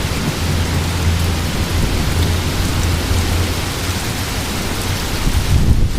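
Steady rain and wind at the tail end of a thunderstorm: an even hiss of rain with a low rumble underneath.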